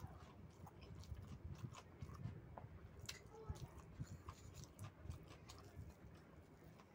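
A person chewing and biting food close to the microphone, with soft, irregular mouth and teeth clicks.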